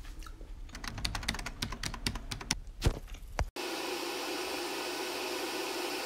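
A quick, irregular run of clicks and taps, then about three and a half seconds in a sudden switch to steady, hissing TV static.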